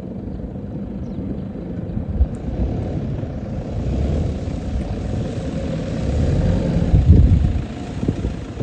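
Toyota Hilux rally pickup's engine running as the truck drives toward the listener on a sandy track, getting louder as it comes closer and loudest about seven seconds in.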